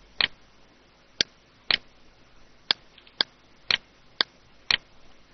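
About eight short, sharp computer mouse clicks, roughly half a second apart, with faint hiss between them.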